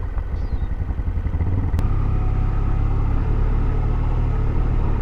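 Motorcycle engine running under way, with road and wind noise, growing louder over the first two seconds as it picks up speed and then running steadily. One sharp click about two seconds in.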